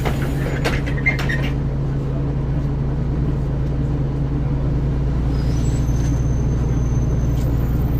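Ikarus 435 articulated city bus's diesel engine idling steadily, with a few clicks and rattles about a second in.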